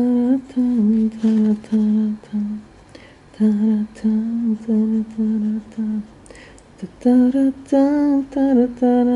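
A woman humming a tune to herself in short notes: two phrases, a pause about six seconds in, then a higher phrase near the end.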